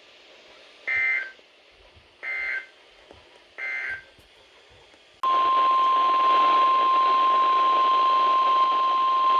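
Three short Emergency Alert System SAME data bursts, the end-of-message code, come about 1.4 s apart. About a second later the NOAA Weather Radio 1050 Hz warning alarm starts: one steady tone over receiver hiss, marking the start of the next alert.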